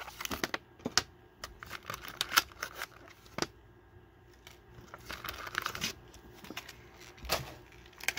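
Stiff plastic blister packaging and a thin clear plastic bag crackling and crinkling as a diecast toy car is unpacked by hand. Scattered sharp clicks, with a longer crinkling rustle about five seconds in.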